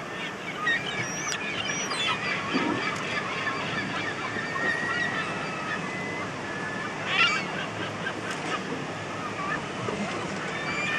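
A flock of gulls calling over one another, many short squawking cries overlapping, with a louder burst of calls about seven seconds in.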